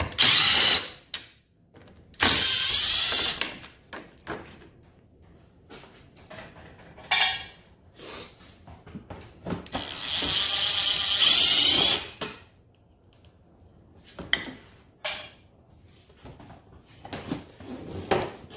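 Ridgid cordless impact driver hammering in short bursts as it backs out Torx T40 fasteners. There are three main runs: a brief one at the start, a longer one about two seconds in, and the longest, about two seconds, near the middle. A shorter spurt and small clicks and knocks of handling come between them.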